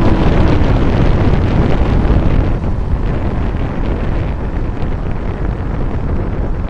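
Wind buffeting the microphone of a motorcyclist's chin-mounted camera at highway speed, a steady rushing that eases somewhat as the motorcycle slows down. A falling tone fades out in the first half second.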